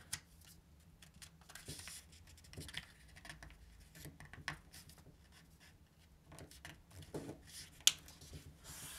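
Sheet of A4 paper being handled and folded: faint rustling, with light taps and crease-pressing rubs and a sharper tap near the end.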